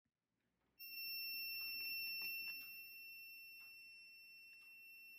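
Active buzzer on a DIY metal detector kit sounding a steady high beep, which starts about a second in and drops in level a couple of seconds later, with a few faint clicks. It sounds without any metal near because the sensitivity trimmer is set too high, and a screwdriver is turning that trimmer to tune it.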